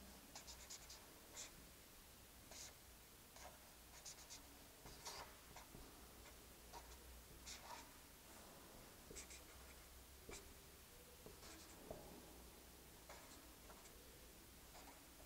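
Marker pen drawing on paper: faint, irregular short strokes as lines and symbols are drawn.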